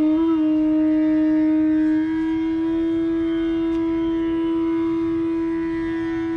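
Bansuri (bamboo flute) playing Raag Yaman: a quick upward bend into a long held note, which steps up to a slightly higher note about two seconds in and is held steadily.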